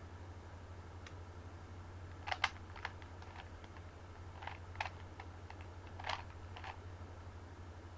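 Plastic Rubik's cube layers being twisted: irregular sharp clicks and clacks in small clusters, over a steady low hum.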